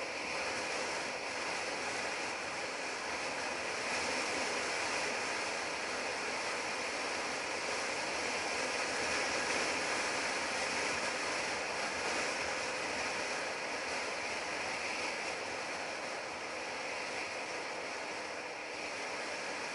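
Steady wind rush and road noise from a motorcycle cruising at highway speed, with the engine running underneath.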